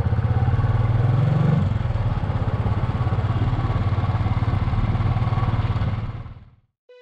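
Motorcycle engine running under way, a steady rapid pulsing with a short rise in pitch about a second and a half in as the throttle opens. The sound fades out near the end.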